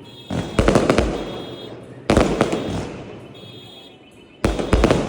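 Fireworks going off in a series of loud bangs, each trailing away in a fading rumble and crackle. Bangs come near the start, about two seconds in, and a quick cluster at about four and a half seconds.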